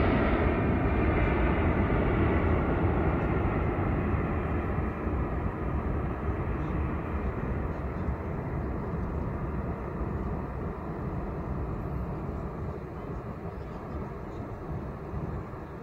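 Jet airliner's engines after takeoff, fading as the plane climbs away: a broad, even rumble that grows steadily quieter, its higher part dying away first.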